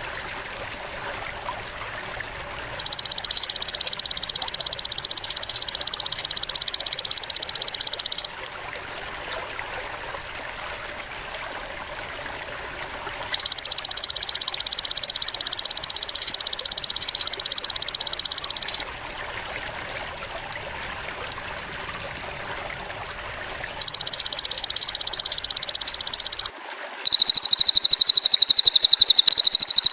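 Repeated high, rapid buzzing trills, each held for about five seconds and three in all, over a steady background trickle of water. Near the end a different, louder and higher buzzing trill begins: the alternating calls of a cililin bird and a belalang emas insect used as masteran.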